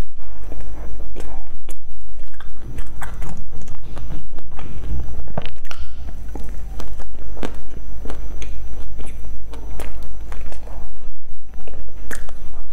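Close-miked biting and chewing of a crumbly pastry: crisp crunching bites and mouth sounds coming one after another, over a steady low hum.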